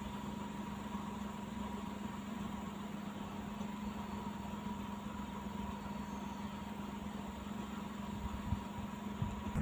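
A car's engine and road noise heard from inside the moving car: a steady low hum with a faint steady tone above it, and a couple of light knocks near the end.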